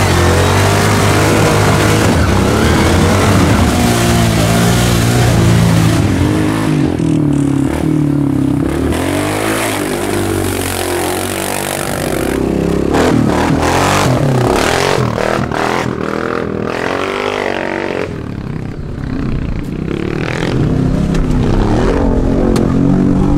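Four-wheel-drive ATV engines revving hard, the pitch rising and falling again and again as the quads churn through mud and sand.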